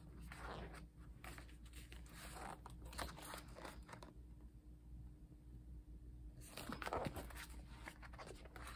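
Photobook pages being turned and handled, the paper rustling and crinkling in short scattered rustles, with a lull of about two seconds midway.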